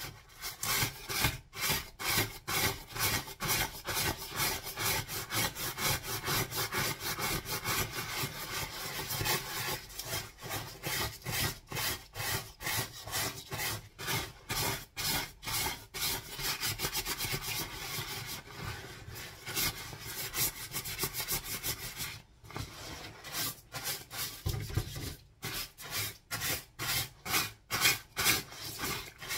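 Stiff scrubbing brush scrubbed back and forth over a wet, soapy puffer jacket, in quick rhythmic strokes about two a second, pausing briefly now and then.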